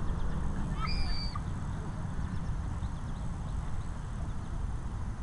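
A bird gives one short call about a second in, over a steady low rumble.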